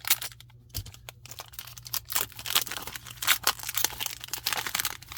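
Foil booster pack wrapper crinkling and tearing as it is opened, in a run of irregular crackles.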